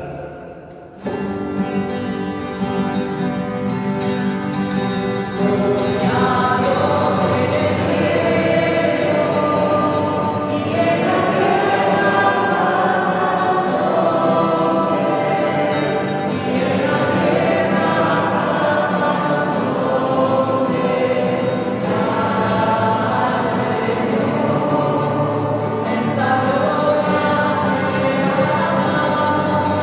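Church choir singing a hymn with instrumental accompaniment. The music starts about a second in with held instrumental tones, and the voices come in fuller and louder about five seconds in.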